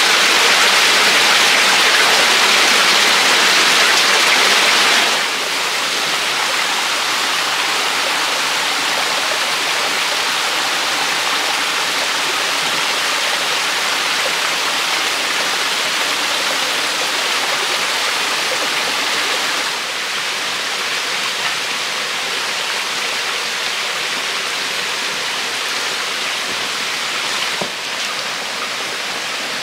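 Rushing water of a rocky forest stream and small waterfall: a steady hiss. It drops suddenly in level about five seconds in, and a little more near twenty seconds.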